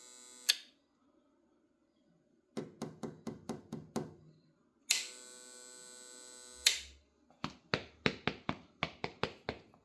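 Tripp Lite PV 550 DC-to-AC inverter giving off a loud electrical buzz, a defect in this unit, that cuts off with a click about half a second in, comes back for about two seconds in the middle and cuts off again with a click. Between the buzzes come two runs of rapid clicks, about five a second.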